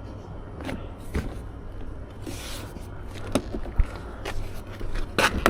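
Plastic door trim panel of a Dodge Charger being pushed onto the door: several knocks and clicks as its retaining clips snap in, with a short scraping rustle about two seconds in.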